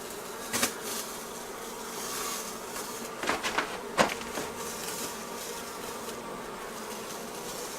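A large colony of honey bees buzzing steadily, with a few sharp clicks about half a second in and again around three to four seconds in.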